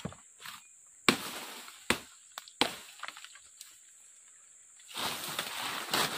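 Short machete (parang) chopping woody brush: a few sharp strikes in quick succession, the first the loudest. Near the end comes a dense rustle of leafy stems being dragged through the undergrowth.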